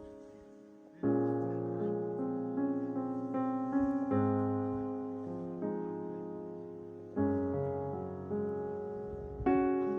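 Background piano music: slow sustained chords, struck anew every few seconds and left to fade.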